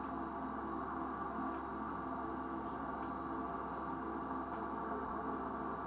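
Soft ambient background music of held, bell-like tones over a low steady hum, with faint light ticks now and then.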